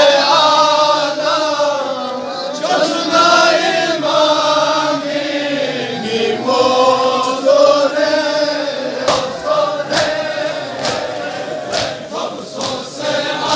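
A crowd of men chanting a Balti noha, a Shia mourning lament, together in one slow, wavering melody. There are several sharp smacks in the second half.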